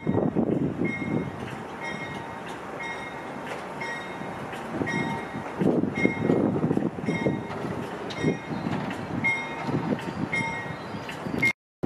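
The Indian Pacific's stainless-steel passenger carriages rolling slowly by on a curve, a steady uneven rumble of wheels on rail. A short high-pitched tone repeats about every two-thirds of a second. The sound cuts out just before the end.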